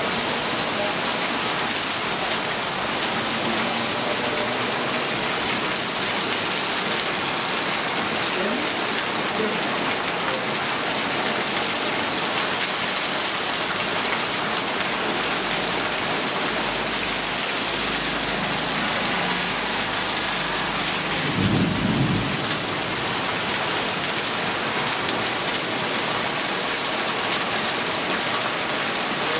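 Heavy rain pouring steadily onto muddy ground, puddles and leaves, with water streaming off a roof edge and splashing into a puddle. A low rumble of thunder builds about halfway through and peaks briefly at about three-quarters of the way in.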